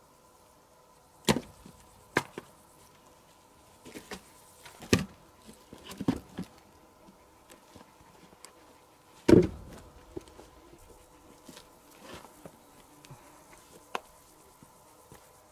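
Scattered knocks and clatter of wood being handled and struck on a log stump: a handful of separate hits a second or more apart, the heaviest about nine seconds in.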